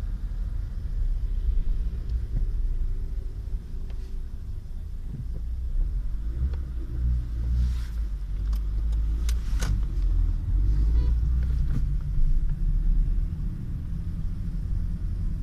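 Steady low rumble of car traffic, with a few sharp clicks about eight to ten seconds in.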